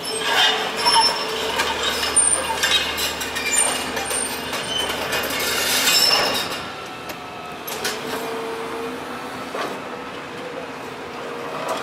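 Volvo EC240CL tracked excavator working on a heap of concrete rubble: clattering, crunching and high metallic squeals over its steady engine for about six seconds, then mostly the engine running, with a little more clatter near the end.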